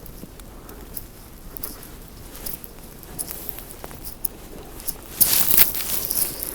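Footsteps crunching through fresh snow, with scattered small crackles and a louder brief rustling rush about five seconds in.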